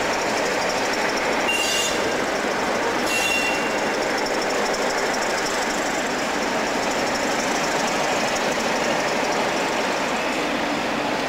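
Class 47 diesel locomotive running as it hauls a rake of coaches past, with the steady rumble of the train on the track. Two brief high squeals, about one and a half and three seconds in.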